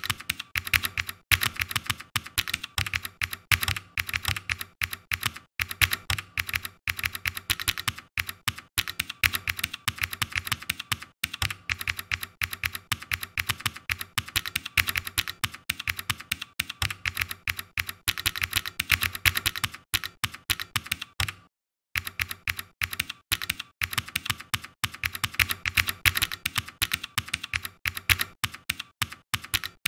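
Typing on a computer keyboard: a quick, uneven run of keystrokes. It breaks off into complete silence for about half a second roughly two-thirds of the way through, then resumes.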